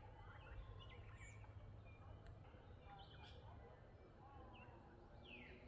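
Several birds calling faintly: scattered short chirps and twitters, with a call sliding downward in pitch near the end, over a low steady rumble.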